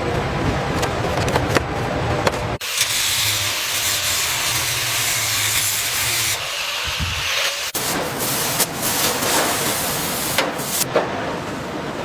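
Machine-shop sound effects: mechanical clatter with scattered clicks, cut sharply about two and a half seconds in to a steady high hiss like a pressurised spray or air release over a low hum, which ends near the eight-second mark as the clatter and clicks return.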